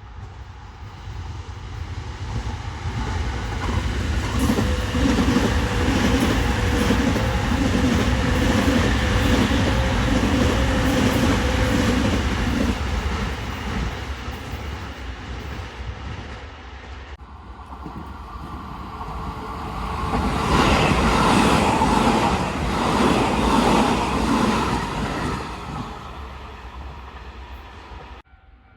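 Electric commuter trains passing on the track. The first builds up, runs loud for several seconds with a steady hum and fades; a second train passes loudly about twenty seconds in.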